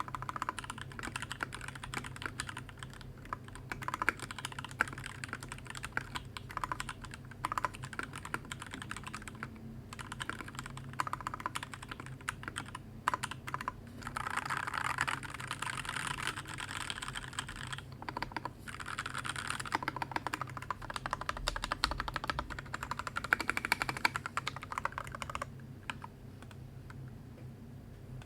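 Typing on a 60% mechanical keyboard with Alpaca linear switches and Keyreative keycaps: a fast run of keystrokes in uneven bursts, stopping near the end.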